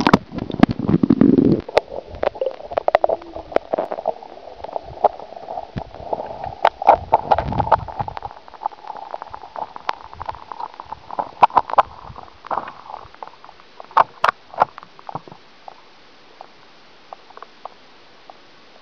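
A camera going under canal water: a rushing splash as it submerges, then underwater gurgling and sloshing dotted with many sharp clicks and knocks. After about 15 seconds it settles to a steady faint hiss with only a few small clicks.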